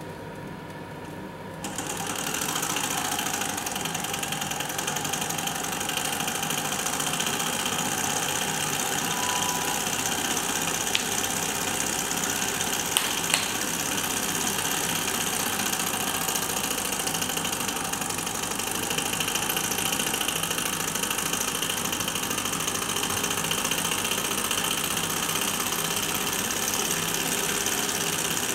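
Small V-type model Stirling engine running with a steady mechanical clatter that starts abruptly about two seconds in. A few sharp clicks come about halfway through.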